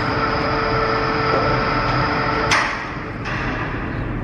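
Metro station and tunnel sound as a train approaches through the tunnel: a steady hum with several held tones. About two and a half seconds in there is a sharp click and the tones cut off.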